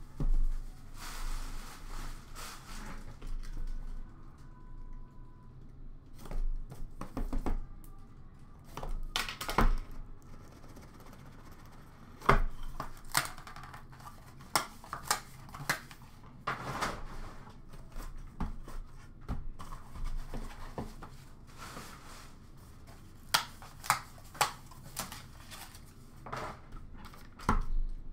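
Hands unpacking a hockey trading-card box: cardboard and packaging rustling and scraping, with scattered sharp knocks and clicks as the box and its inner cases are handled and set down.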